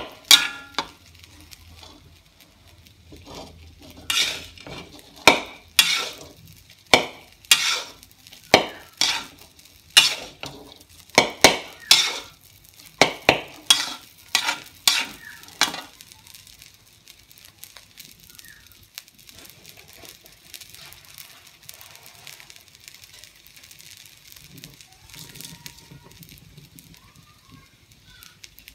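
Metal spatula scraping and tossing fried rice around a steel wok, a sharp stroke about every second, over the rice's sizzle. About halfway through the strokes stop and only a steady sizzling hiss remains.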